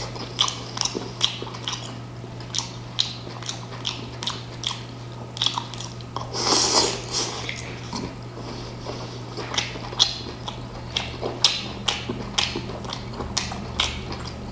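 Close-miked eating of seafood: irregular wet smacks and crisp clicks of biting and chewing, with a longer, louder slurping stretch a little over six seconds in, over a low steady hum.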